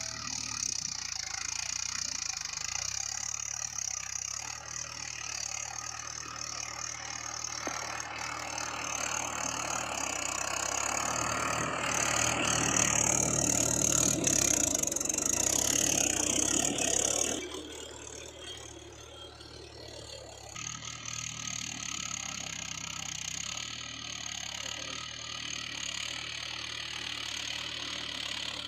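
Mahindra 575 DI tractor's four-cylinder diesel engine running steadily. It grows louder towards the middle, drops off suddenly, and comes back a few seconds later.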